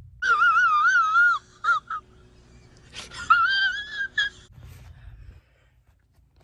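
A high-pitched, wavering wail in two long stretches, the second starting about three seconds in, its pitch wobbling up and down throughout.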